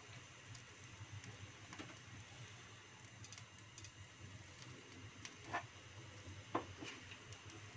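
Faint steady hum of a gas stove burner heating a little oil in a wok, with two soft ticks about a second apart in the second half.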